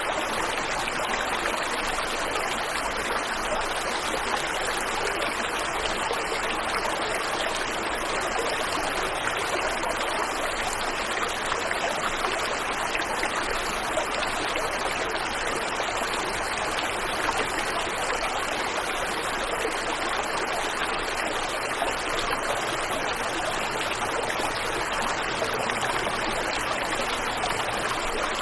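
Waterfall and stream water rushing steadily, an even wash of noise with no breaks.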